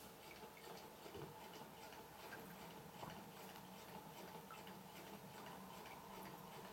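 Quarter-scale Rider-Ericsson hot air pumping engine running slowly, its mechanism making a faint, steady ticking in an even rhythm, over a soft steady hum.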